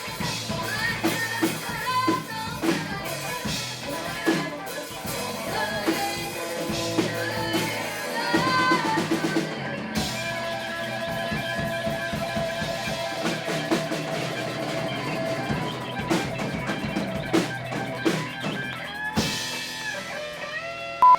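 Rock band playing: a drum kit with a steady beat under electric guitar and other pitched instruments. The music breaks off briefly about nineteen seconds in and picks up again.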